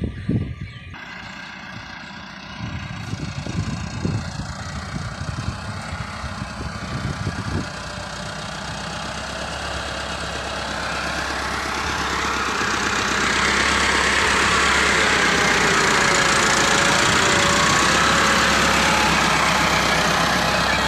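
Massey Ferguson 375 tractor's four-cylinder diesel engine running under load as its front levelling blade pushes soil. It grows louder from about a third of the way in and stays steady and loud through the second half. Irregular low thumps come in the first several seconds.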